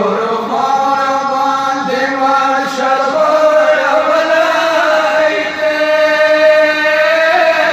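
Several men's voices chanting a Shia devotional recitation together through microphones, holding long drawn-out notes that bend slowly in pitch.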